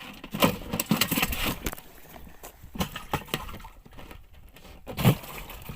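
Irregular knocks and thumps while a hooked snakehead is fought and landed, the loudest strikes about half a second and five seconds in.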